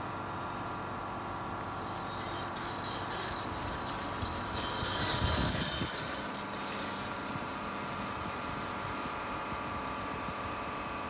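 Electric motorbike passing close on its back wheel in a wheelie, its motor whine and tyre noise swelling briefly about five seconds in, over a steady hum.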